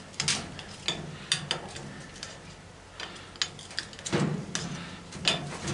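Irregular sharp clicks and metallic knocks of hand tools working on a washing machine motor to get its rubber mounting pads off, about ten in all, some ringing briefly.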